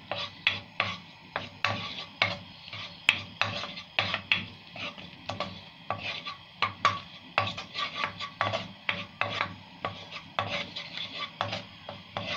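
Wooden spoon stirring crushed garlic in melted butter and ghee, scraping round a nonstick pan in quick regular strokes, about three a second.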